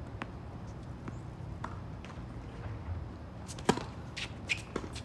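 A handful of sharp knocks and taps over a low steady background, the loudest about three and a half seconds in, followed by a few more in quick succession near the end.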